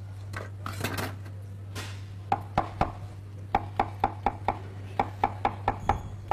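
Chef's knife slicing fresh mushrooms on a wooden cutting board: scattered knocks at first, then a quick, regular run of knife strikes on the board, about four a second, through the second half. A steady low hum runs underneath.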